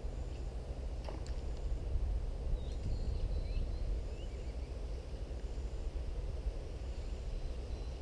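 Steady low outdoor rumble, with a single sharp click about a second in and a few short bird chirps around three seconds in.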